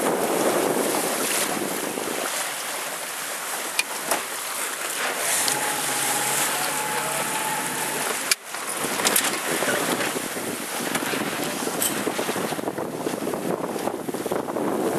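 Wind buffeting the microphone over the rush and splash of water past a moving boat at sea. A faint steady tone sounds in the middle, and the sound briefly drops out about eight seconds in.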